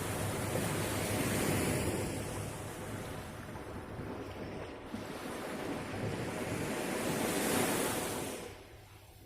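Sea waves washing in, a surging hiss that swells twice and drops away near the end, with some wind on the microphone.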